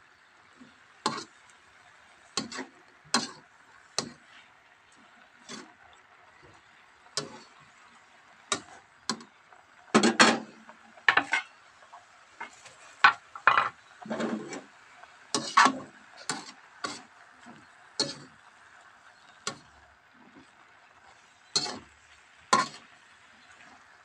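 A spatula knocking and scraping against a wok as stir-fried water spinach is tossed, in irregular strokes that come thickest about halfway through, over a faint steady hiss.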